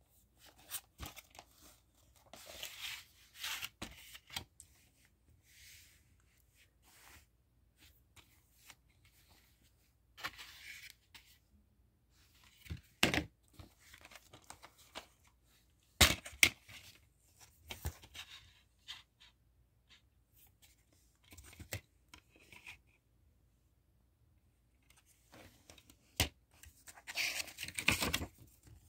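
Plastic DVD case packaging being handled: irregular tearing and crinkling of wrapping. Several sharp clicks of the plastic case are heard, and the longest rustle comes near the end as the case is opened.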